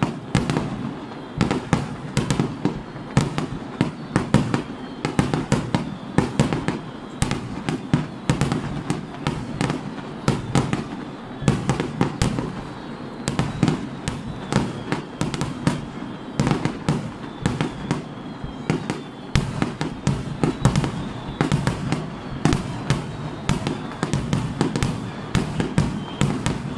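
A fireworks display in a rapid barrage, aerial shells bursting several times a second with overlapping bangs and rumbling echoes and no pause.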